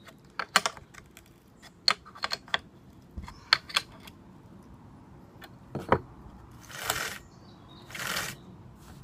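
Sharp metallic clicks and clinks of a short stubby spanner working the bar-mounting nuts on a Homelite XL12 chainsaw, with two short rasping sounds near the end.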